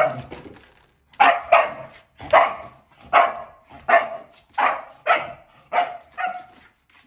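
Nova Scotia duck tolling retriever barking repeatedly at a tissue box, about ten sharp barks spaced half a second to a second apart.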